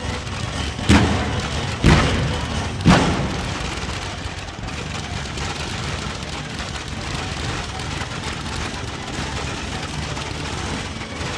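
Three loud firework shell bursts about a second apart, each with a short rolling tail, followed by a steady hiss of noise.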